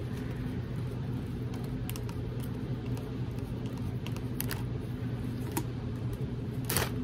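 Steady low background hum, with faint scattered clicks of hands winding a wind-up butterfly's twisted rubber band, and a sharper click near the end.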